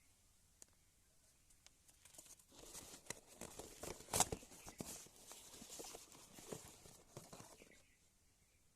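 Product packaging being handled and opened: a few seconds of rustling and crinkling with small clicks, and one sharp click about four seconds in.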